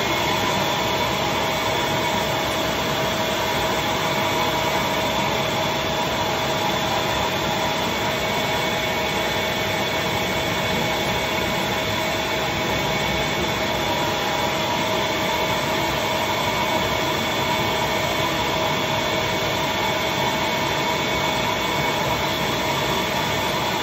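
Shop vac running steadily with a whine, drawing suction through a leaf-casting setup to pull a freshly wetted comic-book page flat.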